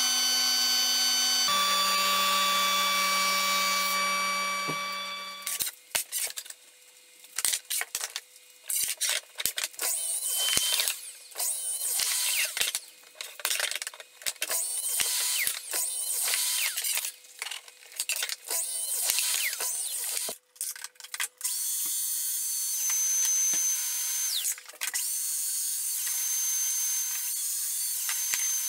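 Power tools working wood: an electric tool motor whines steadily, drops in pitch about a second and a half in, and stops at about five and a half seconds. A run of short, choppy bursts of tool-on-wood noise follows, then a steadier high-pitched tool whine, broken a few times, near the end.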